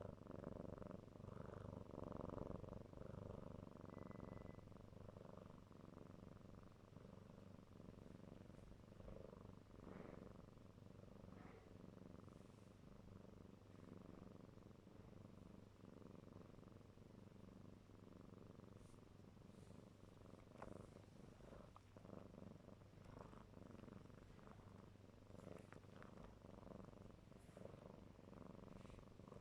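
A kitten purring steadily and softly, a little louder in the first few seconds, with a few faint clicks later on.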